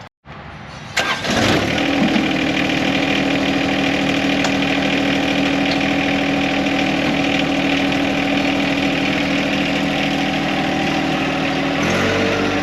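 John Deere compact utility tractor's three-cylinder diesel engine starting about a second in, then running steadily; its note shifts near the end.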